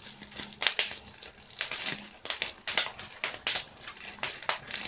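Plastic bubble wrap being scrunched and crinkled in the hands close to the microphone: a run of irregular crackles and rustles.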